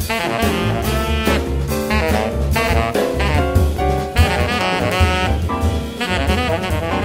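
Jazz music with saxophone, brass and a drum kit keeping a steady beat.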